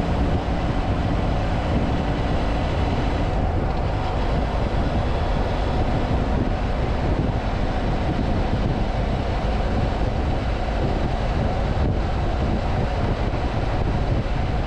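BMW F700GS parallel-twin engine running at steady cruising speed under heavy wind rush on the microphone; the engine's low hum stands out in the first few seconds, then sinks into the wind noise.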